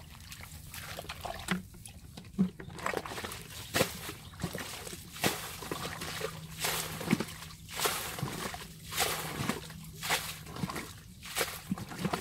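Muddy water sloshing and splashing as a bucket is dipped and scooped in a shallow water-filled hole, in a run of irregular splashes one or two a second.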